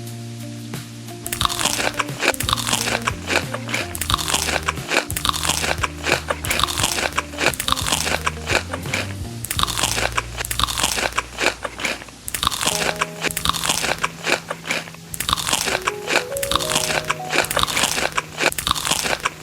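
Crunchy food being bitten and chewed close to the microphone, in repeated bouts of crisp crackling crunches, with brief lulls at the start and about twelve seconds in. Background music plays throughout.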